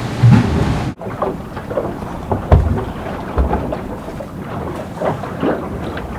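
Wind and water rushing around an IMOCA racing yacht under sail at sea, with spray and splashes and heavy low thumps about half a second in and again about two and a half seconds in.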